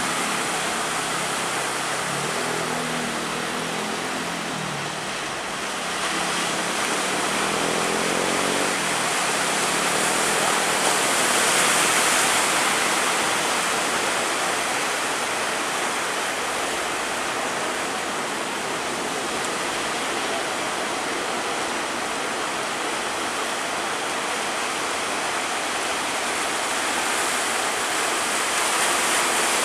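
Steady rushing noise of heavy sea and wind around a ship rolling in big waves, swelling a little about twelve seconds in.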